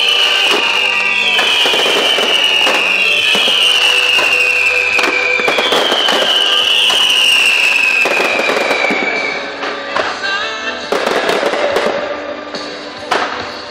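Fireworks display going off: a run of overlapping whistles, each sliding down in pitch, through the first nine seconds or so, over steady crackling, then louder bangs near the end. Music plays along underneath.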